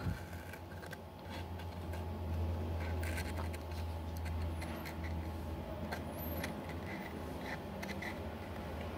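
A steady low hum, with faint scratches and light clicks from small parts and tools being handled on a workbench.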